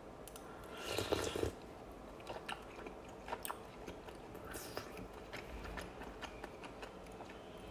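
A person chewing and eating spoonfuls of sujebi, chewy hand-torn dough soup: soft chewing and mouth clicks, louder for a moment about a second in.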